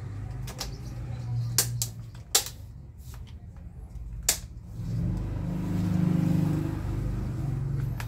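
Sharp plastic clicks and snaps as a table fan's front grille is pressed and clipped into place, four or five single clicks. From about five seconds in, a low mechanical rumble swells, is loudest around six seconds in, then eases.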